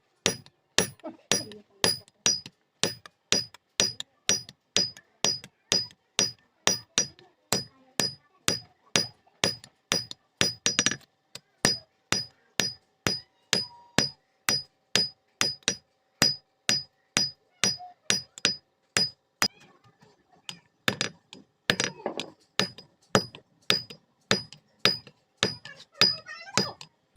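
Blacksmith's hand hammer forging steel on an anvil: a steady run of ringing blows, about two a second. The blows pause briefly a little before two-thirds of the way through, then start again.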